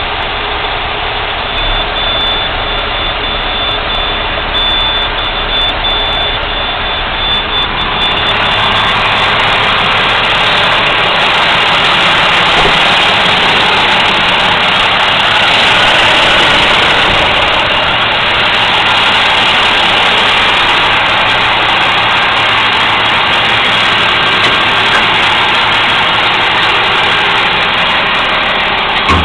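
Labrie Minimax garbage truck's engine running steadily, with a faint high whine at first; about eight seconds in the engine grows louder and harsher and stays up.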